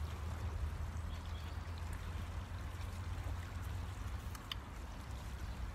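River water flowing steadily, with a constant low rumble underneath and a few faint clicks.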